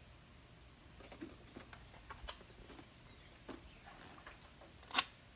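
Scattered knocks, taps and rubbing as a padded Mustang motorcycle seat is pressed and shoved down onto its mount, a stiff fit, with one sharp loud click about five seconds in.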